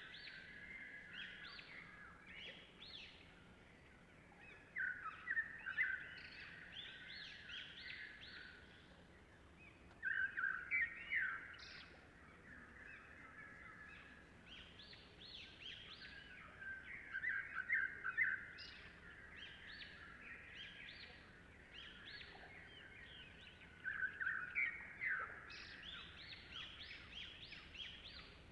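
Songbirds singing: a steady run of quick chirps, with four louder phrases of rapid notes spaced roughly six to seven seconds apart.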